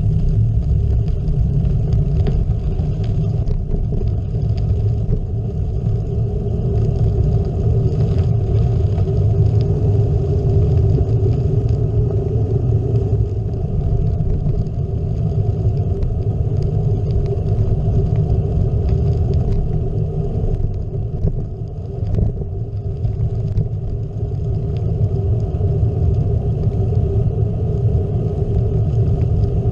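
Wind buffeting a bike-mounted GoPro and gravel-bike tyres rolling over a dirt-and-gravel road: a loud, steady low rumble that dips briefly a little after twenty seconds.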